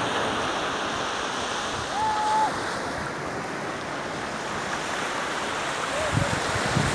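Surf breaking and washing up the sandy shore, a steady rushing noise. A brief, high, whistle-like note sounds about two seconds in, and some low buffeting comes near the end.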